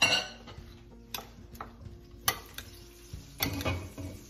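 Shredded cabbage salad being tossed and stirred in a glass bowl: a wet rustling of the vegetables and several sharp clicks of the utensil against the glass, about a second apart, the loudest at the start.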